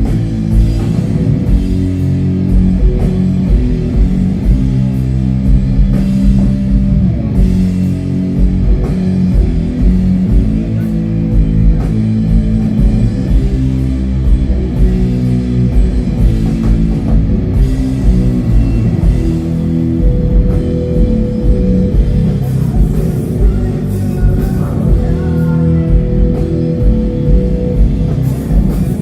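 Doom metal band playing live: loud, heavy distorted guitars and bass over drums, dense and low-pitched throughout. A long held high note joins about two-thirds of the way in.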